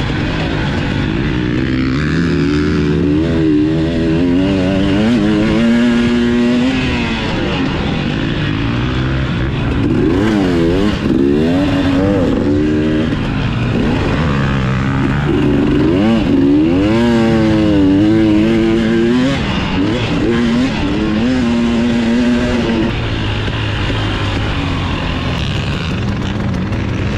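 KTM dirt bike engine revving up and down again and again as the rider accelerates, shifts and rolls off around a motocross track. It settles to a lower, steadier note near the end as the bike slows.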